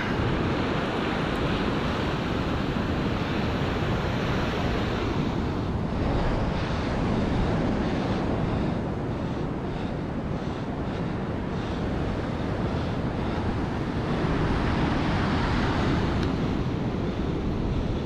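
Rough ocean surf breaking and washing up the beach in a steady rush that swells with the incoming waves, with wind buffeting the microphone.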